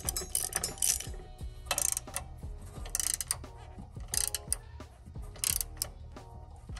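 Hand ratchet clicking in short, irregular runs as it turns a 17 mm bolt through a socket extension, tightening a rear differential brace a little at a time.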